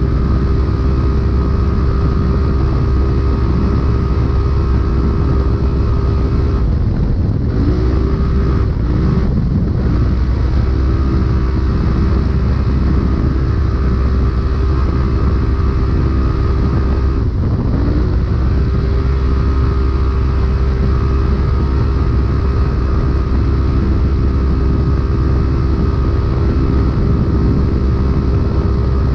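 Polaris RZR race UTV engine running hard at high, steady revs, heard from inside the car over a steady rush of noise. The revs dip and climb back about seven seconds in, and again briefly a little past halfway.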